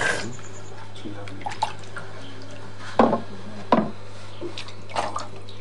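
Water in a calabash gourd bowl sloshing and splashing as a hand stirs and scoops it, with a few sharper splashes about halfway through and again near the end.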